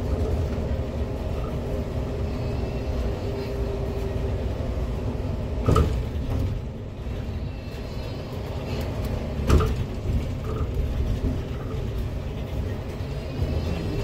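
Inside a moving city bus: steady engine and road rumble, with two sharp knocks, one a little before halfway and a louder one about two-thirds of the way through.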